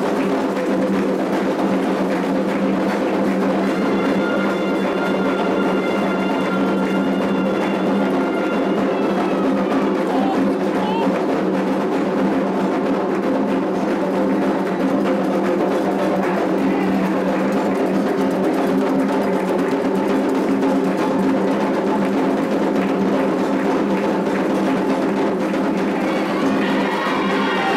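Candomblé ritual music: drums and percussion keeping a dense, steady rhythm, with voices singing near the end.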